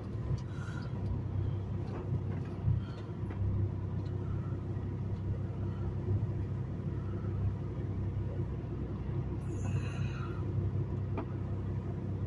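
Semi truck's diesel engine idling with a steady low rumble, heard from inside the cab.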